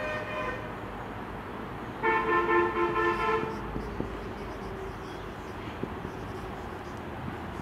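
A vehicle horn honking outside: a short toot right at the start, then a longer steady blast about two seconds in that lasts roughly a second and a half, over a low steady background hum.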